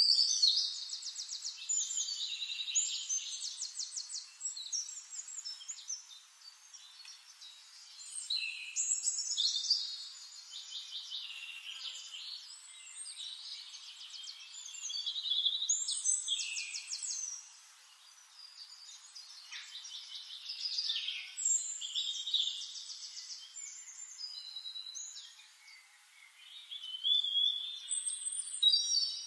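Songbird singing: high, rapid trilled phrases that come in bursts every few seconds, with short pauses between them.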